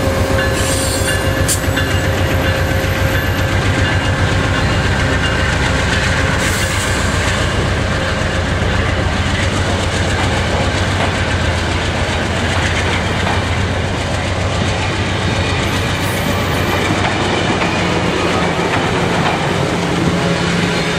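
Amtrak P42 diesel locomotive and its stainless-steel passenger cars rolling close past on the rails: a loud, steady rumble of wheels on track with rapid clicking over the rail joints.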